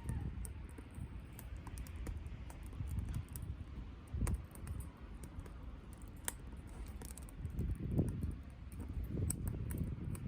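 Softwood fire crackling in a Chinese-made Solo Stove-style wood stove: irregular sharp snaps and pops, with a low rumble underneath.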